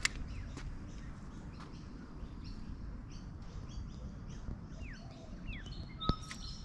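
Birds chirping: short high calls over and over, with a few falling whistles about five seconds in, over a steady low outdoor rumble. A single sharp click sounds near the end.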